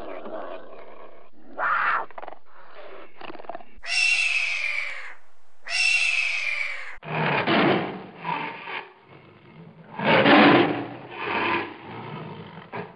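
A cougar growls in a few short snarls, then a red-tailed hawk gives two long, high, falling screams, then a tiger growls low and loud in several bouts, the loudest a little past the middle of its run.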